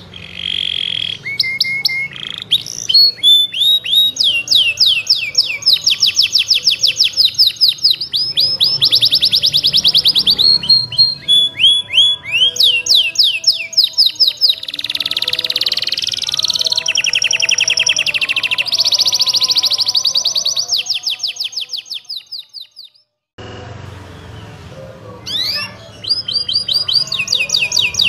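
Domestic canary singing a long, continuous song of rapid trills: runs of quick repeated whistled notes, many per second, changing pitch from phrase to phrase. The song breaks off briefly a little over three quarters through, then resumes.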